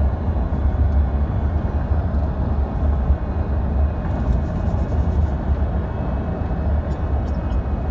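Steady low rumble of road and engine noise heard from inside a car driving at speed.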